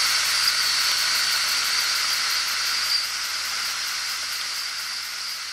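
Homemade oscillating double-acting model steam engine running fast, with a steady hiss of steam that slowly gets quieter.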